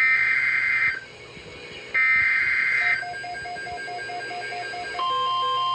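Two bursts of the screechy digital SAME header of an Emergency Alert System broadcast on NOAA Weather Radio, each just under a second and about two seconds apart. About five seconds in, the steady 1050 Hz weather radio alert tone begins. A faint, quick beeping runs beneath from about three seconds in.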